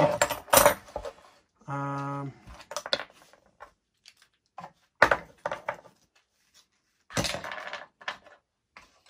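Small metal parts and screws clinking and clattering as they are handled and dropped into a bin, with a sharp knock about five seconds in. A short steady hum comes about two seconds in.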